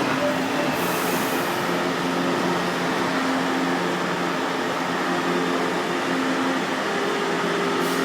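Steady whir and hum of a São Paulo Metro train at the station platform, with a few low steady tones coming and going.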